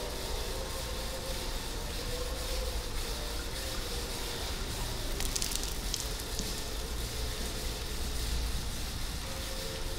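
Steady hissing noise over a low rumble, with a few faint clicks about five seconds in.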